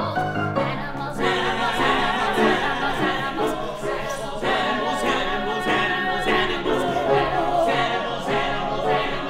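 Musical-theatre song: several voices singing together over musical accompaniment.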